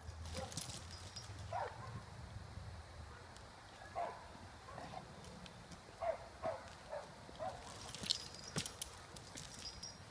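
A heavy tow chain clinking and rattling as a dog moves on it, with several short whines from the dog that fall in pitch.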